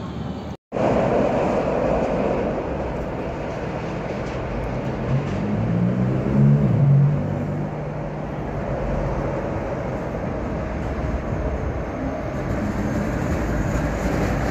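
Steady rumble of a train and street traffic around a railway viaduct, with a low hum that swells for about two seconds around six seconds in. The sound drops out for an instant near the start.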